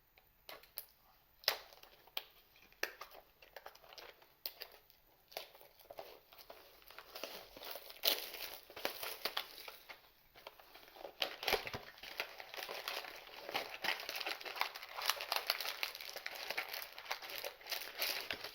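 Plastic and foil trading-card packaging crinkling and tearing as it is handled: sparse rustles and clicks at first, then denser crinkling from about eight seconds in.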